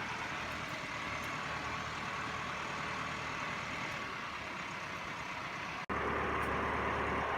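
Farm vehicle engine running steadily. The sound breaks off for an instant about six seconds in, then carries on slightly louder.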